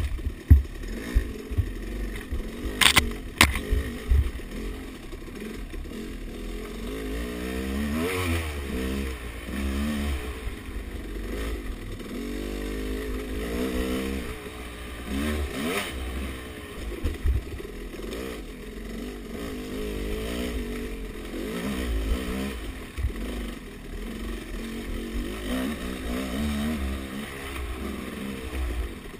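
Off-road dirt bike engine revving up and down over and over as it is ridden along a rough trail. A few sharp clattering knocks sound in the first few seconds.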